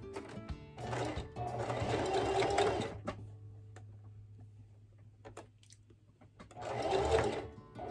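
Electric sewing machine stitching stretch fabric in two runs: a longer one of about two seconds starting about a second in, and a shorter one near the end, with a pause between.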